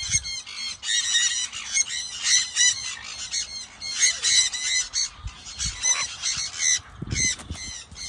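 Blue-crowned conures squawking, short harsh calls coming several a second with brief lulls, and a few low thuds near the end.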